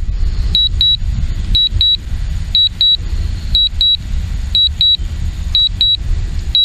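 Strong wind buffeting the microphone with a heavy, uneven low rumble, over a DJI Mavic Pro remote controller sounding a high double beep about once a second: its warning while the drone is on an automatic low-battery return-to-home.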